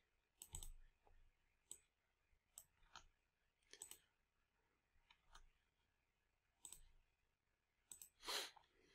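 Faint computer mouse clicks, about a dozen, scattered irregularly, with one slightly longer and louder noise near the end.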